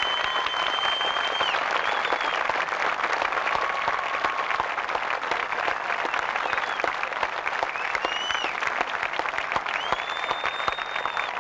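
Crowd applauding steadily: the dense patter of many hands clapping, unbroken throughout.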